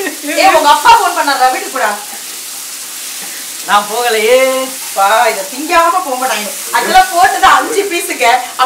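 Onion, tomato and mutton frying in oil in a pan while being stirred with a spatula: a steady sizzle, heard on its own for a moment about two seconds in, with voices talking over it before and after.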